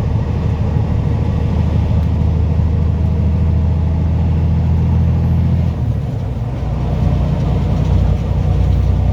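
Semi truck's diesel engine running under way, heard from inside the cab, with a steady low drone. About six seconds in the sound dips briefly and the engine note changes pitch, as at a gear change.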